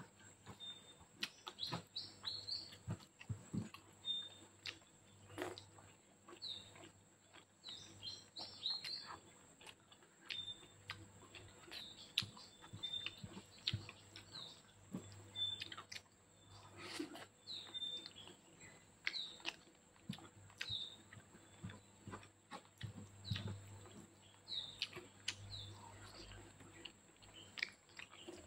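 Close-up wet chewing, lip smacks and clicks of someone eating spaghetti by hand, with small birds chirping repeatedly in short high calls throughout.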